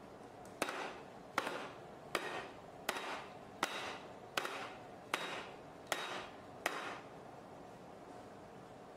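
Round aluminium cake pan full of batter dropped onto a table nine times, about one knock every three-quarters of a second, each with a short metallic ring. This taps out the big air bubbles in the batter before baking.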